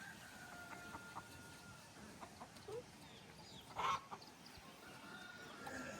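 Domestic chickens clucking and calling, with a long drawn-out high call at the start and another near the end, and a brief louder sound about four seconds in.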